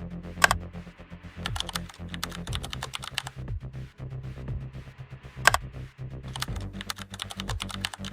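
Background electronic music: a held bass line that shifts every couple of seconds under dry, clicky percussion, with two sharp hits, about half a second in and about five and a half seconds in.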